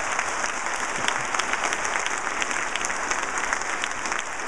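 Conference audience applauding, with many hands clapping at once in a dense, steady clatter.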